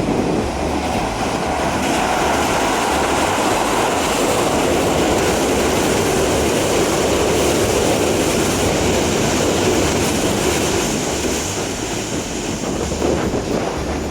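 Keisei 3000 series electric train running across a railway bridge, a steady rumble of wheels and girders that builds over the first two seconds and eases off near the end.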